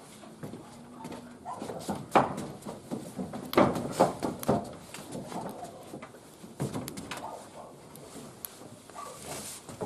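Wood fire in a barbecue grill crackling, with scattered sharp pops and a few louder knocks.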